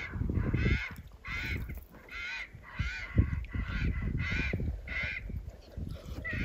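Crows cawing from their nest: about eight harsh caws in a steady series, roughly one every 0.7 seconds, over a low rumble.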